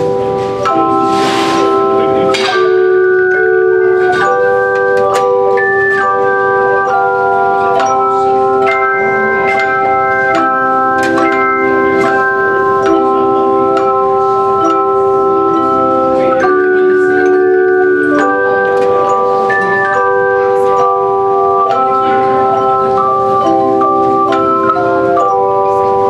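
A bell choir playing a piece on handchimes: several ringing notes held together as sustained chords, changing every second or two.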